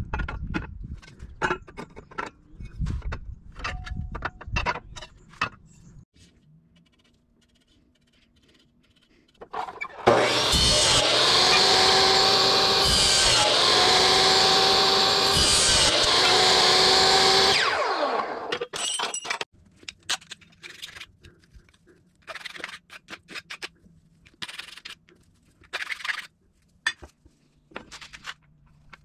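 Workshop work on metal parts: scattered clicks and knocks, then from about ten seconds in a power tool runs loudly for about seven seconds with a steady whine, followed by more light taps and clicks.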